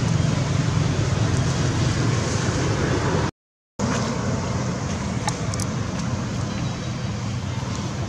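Steady outdoor background rumble with a hiss above it, like distant road traffic; it drops out completely for about half a second a little after three seconds in.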